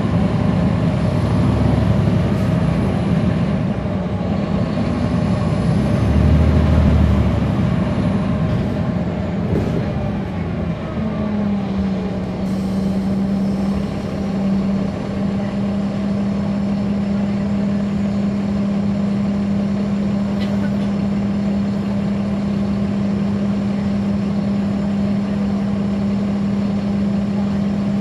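Interior sound of a NABI 416.15 transit bus's Caterpillar C13 ACERT diesel engine, loud and uneven for the first ten seconds or so, then settling about eleven seconds in into a steady, even drone.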